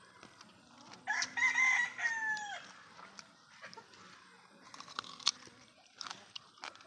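A rooster crowing once: a single crow of about a second and a half that drops in pitch at the end. Scattered light clicks follow.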